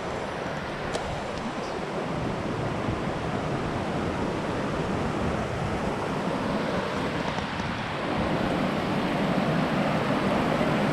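Steady rushing of water from a waterfall cascade, growing a little louder about eight seconds in.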